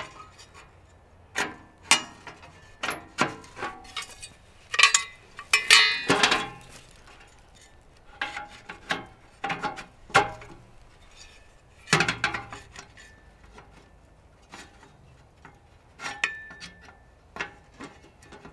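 Laser-cut aluminium panels and legs of a flat-pack ROAM Grill fire box clinking, rattling and knocking as the legs are slotted into holes in its sides. The knocks come irregularly, some with a short metallic ring.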